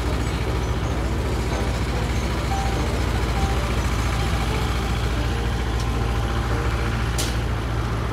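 Steady low rumble of city street traffic, with a brief hiss about seven seconds in.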